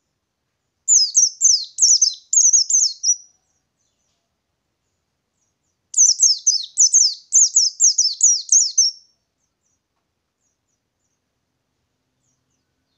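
White-eye (pleci ngalas) singing: two rapid, high-pitched phrases of quick downward-sweeping notes, each lasting about three seconds, with a pause of a few seconds between them.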